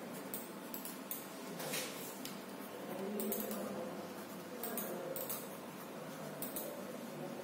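A red coloured pencil scratching on drawing paper in short, quick sketching strokes that come at irregular intervals, over a faint steady hiss.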